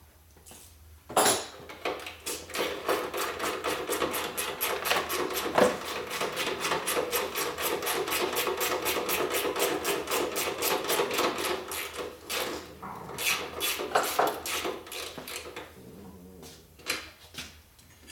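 Ratchet wrench turning a bolt out of the motorcycle's rear fender brace: a fast, even clicking with a steady whir under it for about ten seconds, then it stops. A few separate tool clicks and knocks follow near the end.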